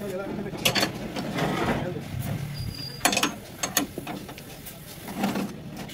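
Ring spanner turning a nut on a bracket bolted to a steel truck cab door, giving sharp metallic clicks, mostly in close pairs, as the spanner is worked.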